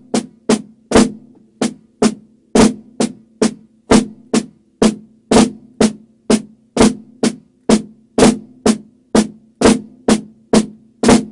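A drum played with sticks in the Swiss Army triplet rudiment, alternating hands: flams and taps in a steady, even rhythm of about two strokes a second, each stroke leaving a short pitched ring.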